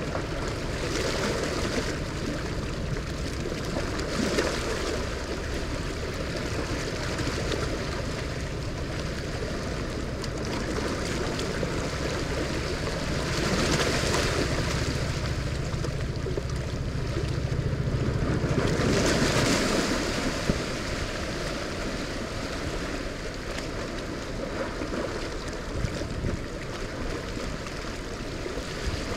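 Rushing, churning water of a dam tailrace running fast past a rocky bank, swollen by heavy flood releases through the dam. Wind rumbles on the microphone for much of it and eases off about two-thirds of the way through.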